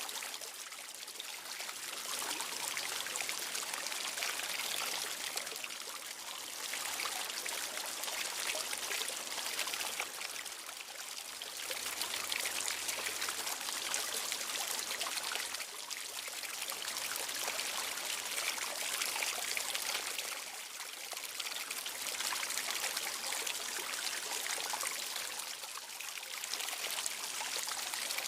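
Flowing water trickling and splashing without a break, a steady hiss that swells and eases slightly every few seconds.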